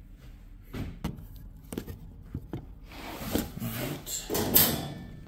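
Knocks and clunks of an old Warm Morning gas space heater's metal door and parts being handled, a handful of separate knocks followed by a couple of seconds of scraping and rubbing that grows loudest near the end.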